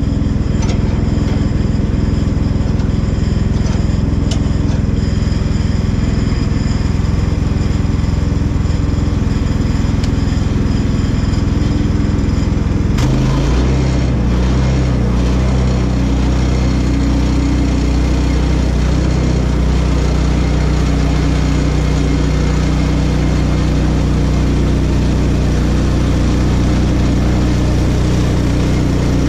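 Small gasoline engine of a Woodland Mills portable bandsaw mill running steadily. About thirteen seconds in there is a knock and the engine note changes and grows heavier as the saw head starts cutting through a small cherry cant, squaring it into a 4x4 post.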